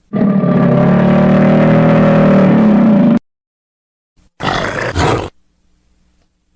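A large animal roaring: one long, drawn-out call of about three seconds, then after a pause a shorter, rougher roar of about a second.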